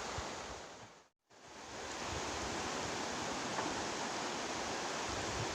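Steady rush of flowing river water. It fades out to silence about a second in and fades back up by about two seconds, as at an edit.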